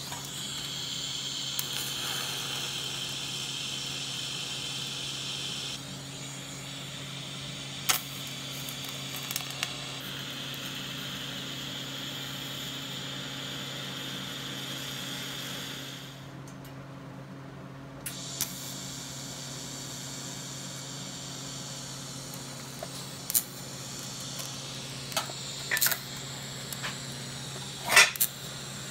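TIG welding arc on steel, hissing steadily over a low electrical hum as filler rod is fed in. The arc breaks off for about two seconds in the middle and then resumes. Several sharp clicks come near the end, the loudest just before the end.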